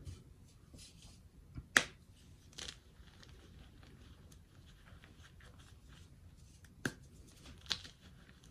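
Hands crushing and crumbling soft, dyed powdery blocks into a loose pile: a faint dry rustle of powder with a handful of sharp crunchy snaps as pieces break, the loudest about two seconds in and two more near the end.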